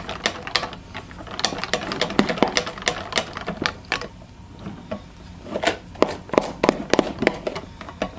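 Wire whisk beating a soft cream-cheese filling in a glass bowl, the wires clicking rapidly and unevenly against the glass, easing off briefly midway.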